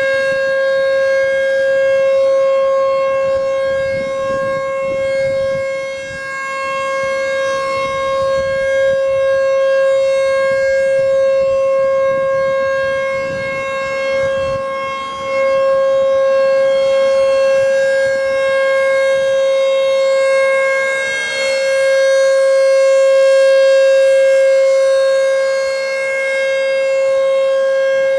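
American Signal T-128 rotating electromechanical outdoor warning siren sounding its Full Alert steady tone on a monthly test. It holds one unchanging pitch, and the loudness slowly swells and fades every several seconds as the rotating horn sweeps past and away.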